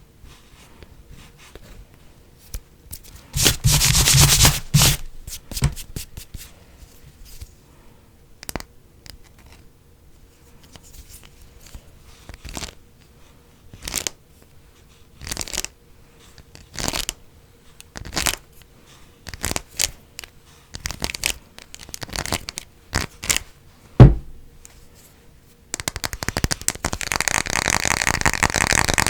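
Fast ASMR tapping and scratching on assorted objects close to the microphone. A loud burst of scratching comes about four seconds in. Then come separate short scratches and taps a second or so apart, and near the end a rapid, continuous run of tapping and scratching.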